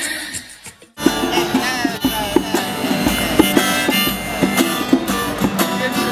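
Acoustic guitar strummed with a harmonica played from a neck rack: a folk busker's tune. It starts about a second in, after other music fades out.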